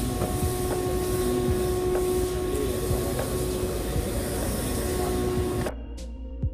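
Steady hum and din of a large museum hall, with a faint held tone running through it. About two thirds of the way through it cuts off suddenly and quiet background music with sparse plucked notes begins.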